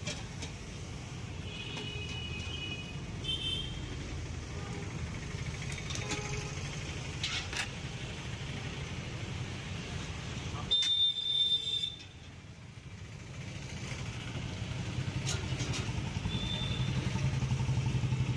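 Roadside traffic: motor vehicle engines running steadily, with a few short horn toots and one louder, shrill tone lasting about a second around two-thirds of the way in.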